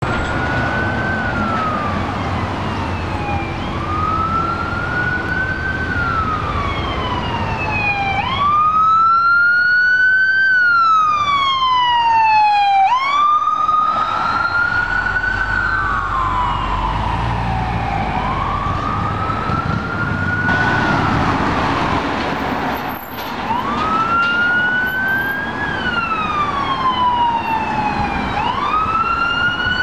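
Emergency-vehicle electronic sirens on the wail setting: the tone climbs quickly to a peak, then falls slowly, repeating about every four to five seconds. Traffic noise runs under it, with a low rumble about halfway through.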